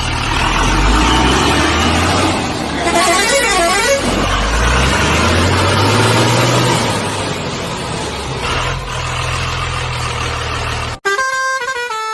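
Heavy-vehicle engine sound, running and revving up and down, with sweeping horn-like tones about three seconds in. Near the end it cuts off abruptly and a tune of stepped tones takes over.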